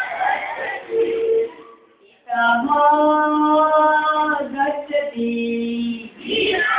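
Group of children singing together. They break off about two seconds in, long steady held notes follow, and the group singing comes back in near the end.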